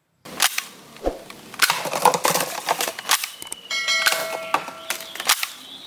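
Plastic toy blaster gun being handled, giving irregular clicks and knocks. A short ringing tone sounds about four seconds in.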